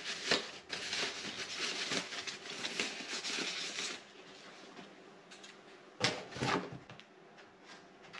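Packaging wrap rustling and crinkling as it is pulled off the camcorder's top handle, with dense crackling for about four seconds. Then it goes quieter, with a short burst of handling noise around six seconds in as the camcorder is picked up and worked on.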